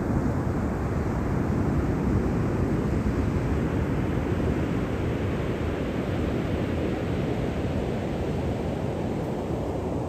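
Pacific Ocean surf breaking and washing up a sandy beach: a steady rumbling roar of water that swells in the middle and eases off near the end.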